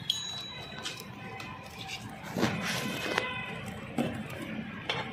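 Plastic clicks and rustling of hands threading and pulling a nylon cable tie around a taped GPS tracker and a wire harness. There are about six separate clicks, the loudest about halfway through.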